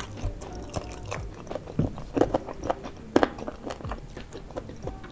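Chewing spicy boneless chicken feet with the mouth: irregular clicking mouth sounds, loudest a little after two seconds and about three seconds in.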